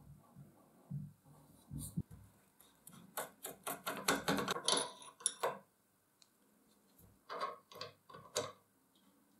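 1959 air compressor pump being handled: soft low knocks as the piston is turned over by hand, then a quick run of metal clicks and scraping for about two and a half seconds as the oil filler cap is worked loose. A few more clicks near the end at the crankcase oil drain plug.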